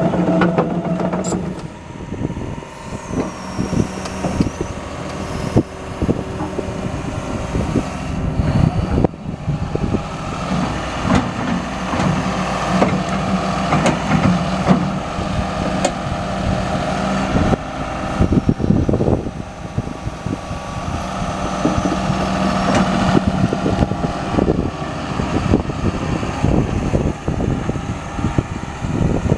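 John Deere 210G LC excavator's diesel engine running, its level rising and falling as the load changes, with frequent knocks and clanks from the machine.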